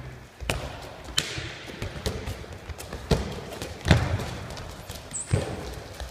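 Handballs striking the floor and wall in an echoing sports hall: about six separate thuds at irregular intervals, the loudest about four seconds in.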